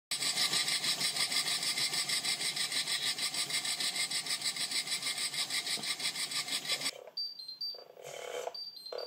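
Scratch-built live-steam Mallet garden-railway locomotive under steam on the bench for its first steam test: its cylinders exhaust in rapid, even hissing chuffs, several a second. About seven seconds in this gives way to quieter short high beeps and the whirr of a small servo motor.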